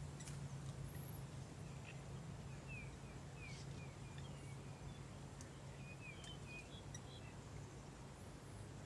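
Faint outdoor field ambience: a bird gives a string of short chirps a few seconds in, over a steady low hum and a few faint clicks.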